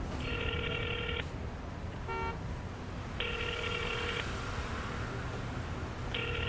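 Telephone ringback tone in a phone's earpiece: three one-second rings about three seconds apart as the call rings out. A brief electronic blip comes between the first two rings, over a low street hum.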